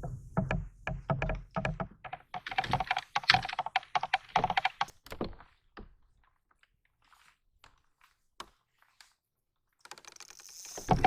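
A rapid, irregular run of knocks and taps for about six seconds, then near silence with a few faint ticks; a louder steady noise starts near the end.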